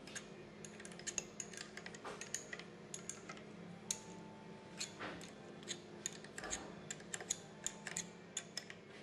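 Many small, irregular metal clicks and taps as a wrench works the bolts of the H bushing that clamps a steel shaft in a cast band wheel.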